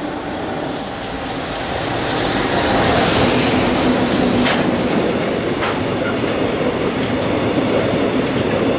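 Oil tank-wagon freight train hauled by a JR Freight EF210 electric locomotive passing close by: steady rumble of wheels on rail that grows louder over the first few seconds as the train draws level, then holds. A couple of sharp clacks sound as the wagons' wheels roll over rail joints.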